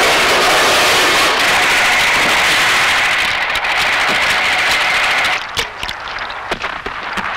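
War-film battle sound effects: a loud, dense rush of blasts and gunfire, which drops about five seconds in to scattered sharp cracks and pops.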